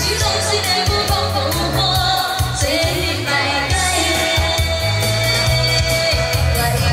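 A woman singing a pop song live into a handheld microphone over amplified pop backing music with a bass line, heard through the PA.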